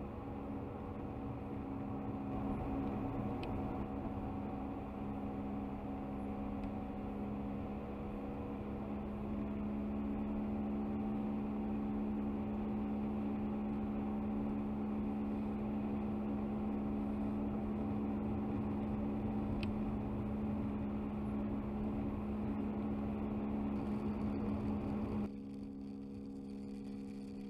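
Car cruising at a steady speed, heard from inside the cabin: a steady engine hum over road and tyre rumble. About 25 seconds in, the low rumble cuts out abruptly, leaving a quieter hum.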